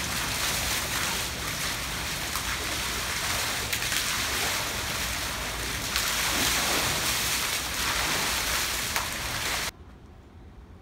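Steady rush and splash of flowing water in an animal exhibit pool, stopping abruptly near the end.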